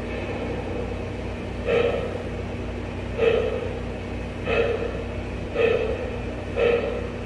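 Lionel Vision Line Challenger O-scale model steam locomotive's onboard sound system playing slow exhaust chuffs, about one a second, starting about two seconds in, over a steady low hum as the engine creeps along the track.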